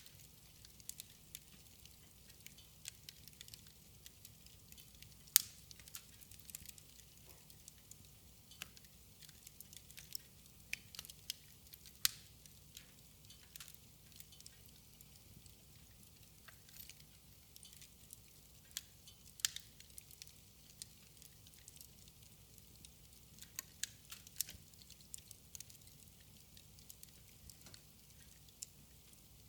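Wood fire burning in a fireplace, crackling and popping at irregular intervals, with sharper pops about five and twelve seconds in.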